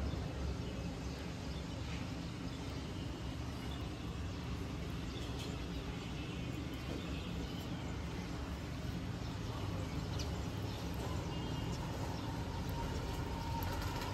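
Steady background noise, mostly a low rumble, with no distinct event standing out.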